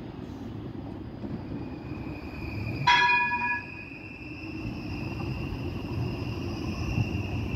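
TNG low-floor tram passing close by: a steady low rumble of wheels on the rails under a steady high electric whine. About three seconds in, a single loud ding from its warning gong rings out and dies away in under a second.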